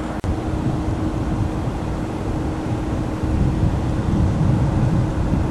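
Steady low outdoor rumble with no distinct event, with a faint steady hum in the first second or two and a brief dropout about a quarter second in.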